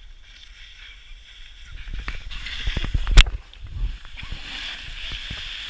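Snowboard scraping over snow, building about two seconds in, then a fall: a run of thuds and knocks with one hard impact near the middle, followed by a steady hiss of sliding through the snow.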